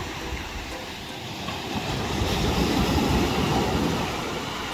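Small surf breaking on a sandy beach, one wave surging in and washing up the shore, rising to its loudest about three seconds in and then fading.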